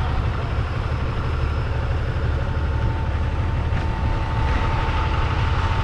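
Heavy tow truck's diesel engine running steadily, a low rumble, with a faint steady whine over it for a few seconds in the middle.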